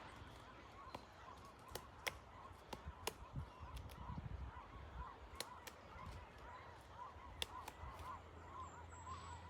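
Woodpecker pecking and chiselling at a log: irregular sharp knocks, about a dozen spread unevenly, the strongest a couple of seconds in. Under it runs a faint, quick, even series of short calls from an unseen animal.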